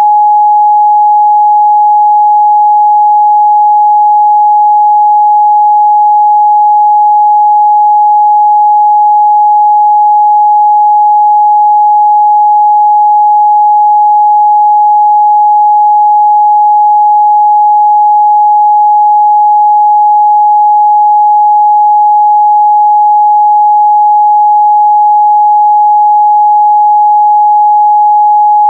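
A steady, loud 838 Hz sine-wave test tone, one pure pitch held without change.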